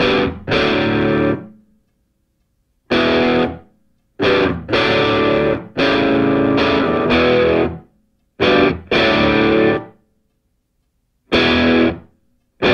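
Background music in stop-start blasts: loud chords that cut off abruptly, leaving silent gaps, the longest about a second, before the next blast.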